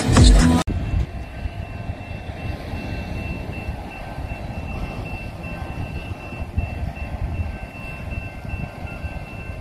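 Music cuts off abruptly just under a second in, giving way to a steady low rumble with wind buffeting the microphone as a train approaches a grade crossing. A thin, steady high ringing tone runs through it: the crossing's warning bell, sounding as the gates come down.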